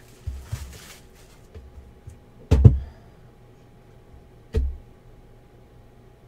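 A cardboard trading-card box handled on a padded tabletop: a brief rustle at the start, then two dull thumps about two seconds apart. The first thump is the louder, about two and a half seconds in.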